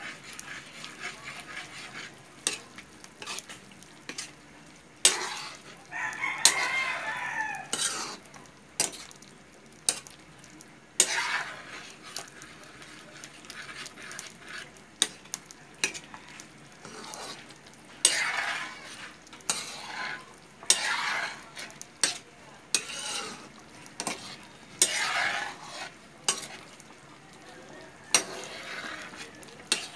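A metal ladle stirring and scraping through a wok of eggplant and minced pork as the sauce thickens with cornstarch, with sharp knocks of the ladle against the pan and a light sizzle. A rooster crows once in the background about six seconds in.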